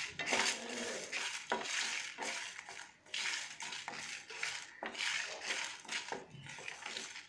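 A wooden spatula scrapes and stirs peanuts, dals and whole spices as they dry-roast in a metal pan. The hard grains rattle and skitter against the metal in repeated, irregular strokes.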